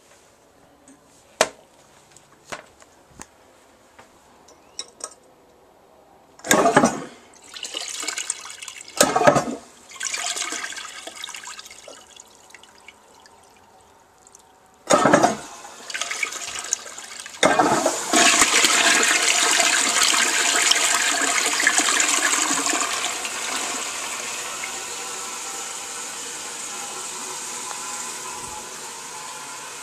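Crane toilet being flushed: a few light clicks, then short gushes of water about six and nine seconds in and again around fifteen seconds. From about seventeen seconds a long rush of water slowly dies down. The uploader calls it a not-so-good flush.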